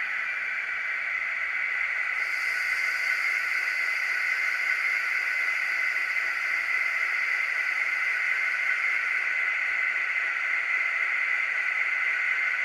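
N gauge Class 56 model locomotive running, its DCC sound decoder playing Class 56 diesel engine sound through a small onboard speaker. A higher hiss joins about two seconds in and stops near ten seconds.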